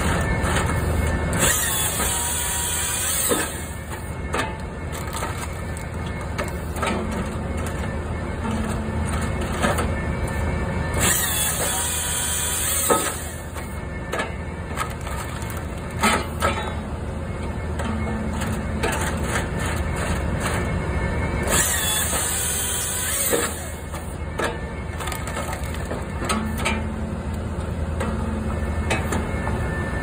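Skid steer engine running steadily while driving a Hahn HFP-160 firewood processor attachment through its hydraulics. About every ten seconds a high hissing burst lasts about two seconds and ends in a sharp knock, with scattered knocks of wood in between.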